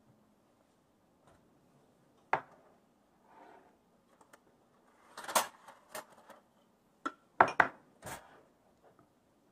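Small ceramic ramekins knocking and clinking against a glass mixing bowl and the granite countertop as spices are tapped out of them: one sharp knock about two seconds in, then a cluster of clinks and knocks over the last few seconds.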